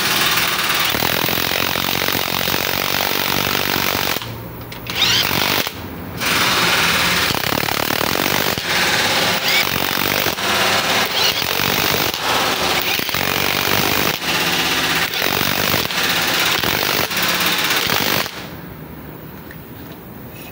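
DeWalt cordless impact wrench hammering as it drives the rocker arm shaft bolts on a 6WA1 diesel cylinder head, in long bursts broken by two short pauses around four and six seconds, stopping about 18 seconds in.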